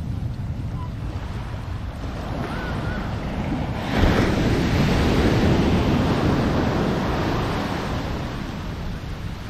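Waves breaking on the beach: one breaks suddenly about four seconds in and washes out over the following seconds. Wind noise rumbles on the microphone.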